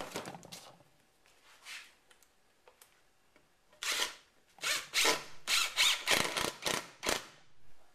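Cordless impact driver driving screws into wood, in about six short runs of rapid rattling hammering, the first about four seconds in.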